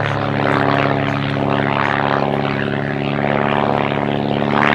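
Van's RV-8 aerobatic aircraft's propeller engine droning at a steady pitch as it climbs near-vertically.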